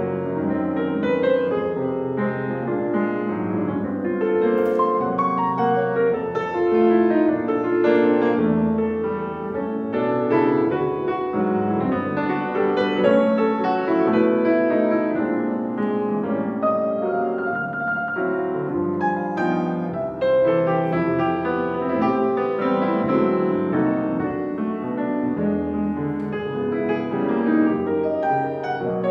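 Grand piano played solo, a continuous flow of notes and chords.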